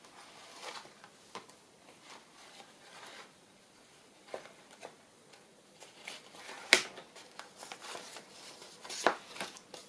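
Paper tags and cards handled and sorted by hand: faint rustling and shuffling with scattered small taps, one sharper tap about two-thirds through.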